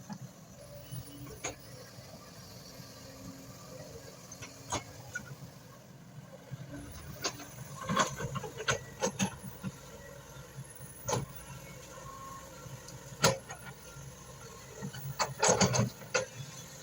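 Excavator running steadily with a low rumble, with repeated sharp metallic clanks and knocks from the machine as it works, the loudest cluster near the end.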